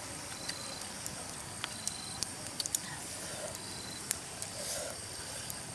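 Steady outdoor hiss with scattered light clicks and taps at irregular intervals, a few of them close together in the middle.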